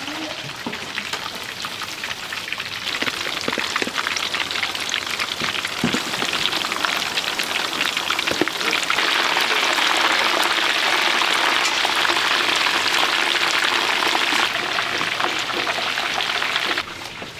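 Chicken deep-frying in hot oil: a dense, steady crackling sizzle that grows louder about halfway through.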